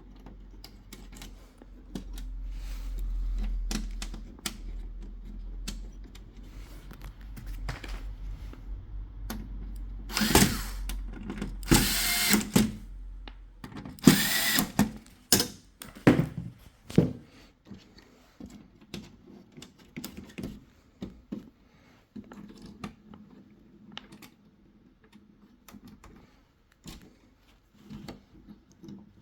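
Electric screwdriver driving in the screws that fasten a TV's power board. A steady low motor hum runs through the first half, with several louder runs about ten to fifteen seconds in, then light clicks and knocks of handling.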